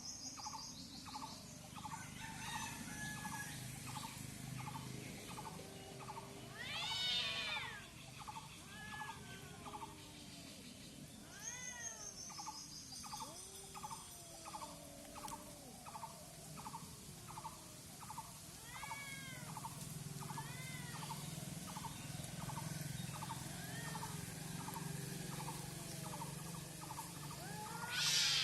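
Cats yowling in a fight: several long, wavering yowls that rise and fall in pitch, the loudest about a quarter of the way in and at the very end, over a steady rapid ticking.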